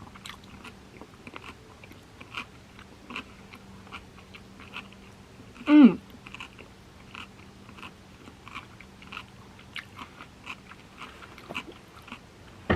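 Close-miked mouth chewing a sushi roll: soft, wet clicks and smacks at an uneven pace. About six seconds in comes a short hummed "mm" that drops in pitch.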